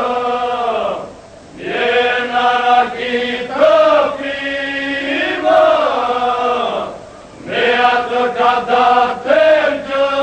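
Men's folk group from Gjirokastër singing an Albanian polyphonic song: the voices hold long notes, with a steady held pitch under lead voices that glide up and down. The singing breaks off briefly twice between phrases, about a second in and about seven seconds in.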